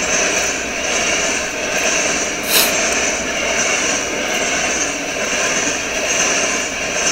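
Covered hopper cars of a freight train rolling past close by: a steady rumble and rush of steel wheels on rail, with one short sharp click about two and a half seconds in.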